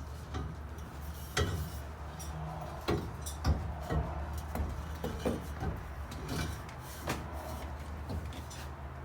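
Irregular knocks and clunks of metal parts and tools being handled and set down, about seven or eight separate strikes, over a steady low hum.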